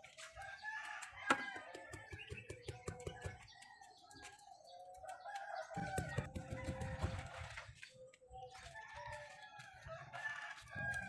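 Bird calls in several long pitched phrases, with a sharp knock about a second in and low rumbling noise partway through.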